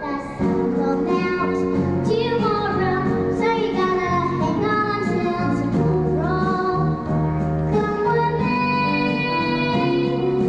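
A young girl singing a song into a handheld microphone over instrumental accompaniment.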